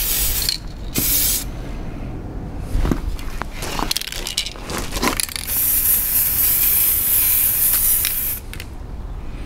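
Aerosol spray-paint can hissing in two short bursts, then footsteps crunching on gravel, then one long spray of about three seconds and a brief last burst.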